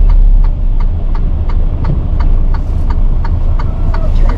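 Delivery truck's engine running, a steady low rumble heard from inside the cab, with an even clicking about three times a second over it.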